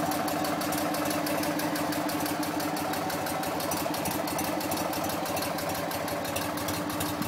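1958 BMW R50's flat-twin boxer engine idling steadily at an even rhythm, on its first run after a full restoration.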